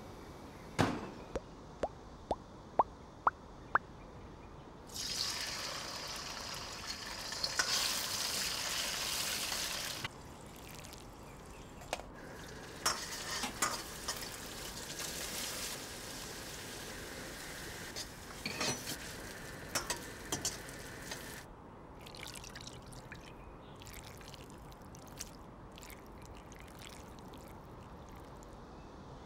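Kitchen sounds: several light clinks in the first few seconds, then oil sizzling loudly in a wok for about five seconds as shrimp tomalley fries, with a metal spatula scraping and knocking against the wok. From about 21 seconds in, only soft clicks and wet sounds as noodles are tossed in a bowl.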